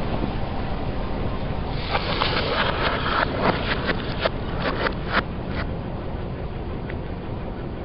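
A car tyre rolling over a stack of liquid-filled plastic tubes, which crackle and pop in a rapid run as they burst, starting about two seconds in and dying away by the middle. A steady low rumble from the car lies under it.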